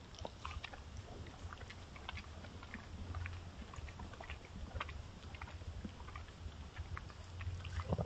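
A Roosevelt elk right at the trail camera, making scattered small crackles and clicks at close range over a low steady hum.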